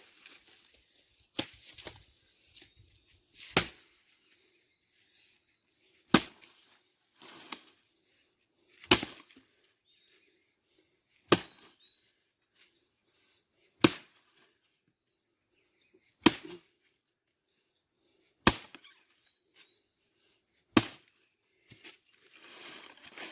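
Axe chopping dry firewood: about nine sharp, evenly paced blows, roughly one every two and a half seconds, as a branch is split down the middle.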